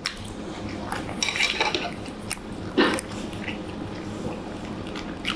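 Metal chopsticks clicking against plates and bowls during a meal, with chewing: a few scattered short clicks and clatters over a low steady background, the loudest a knock about three seconds in.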